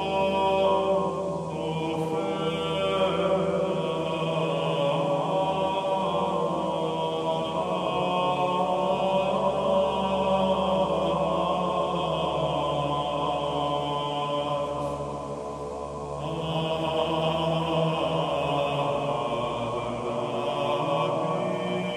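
Film soundtrack music: a sustained drone of layered, long-held tones, easing off briefly about fifteen seconds in before swelling again.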